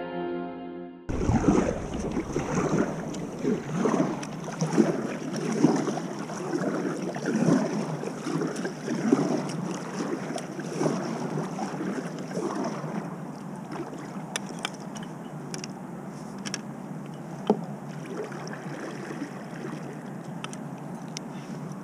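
Kayak paddle strokes: the blades dip and splash through the water in a steady rhythm as the kayak glides. The strokes stop a little over halfway through, leaving quieter water and hull sounds with a few small sharp clicks. The first second holds the tail end of soft background music.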